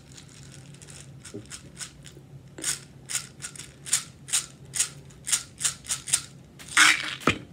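4.5 mm steel BBs being loaded one at a time by hand into a BB pistol's magazine: a string of sharp metallic clicks, about two a second, with a louder rattle near the end.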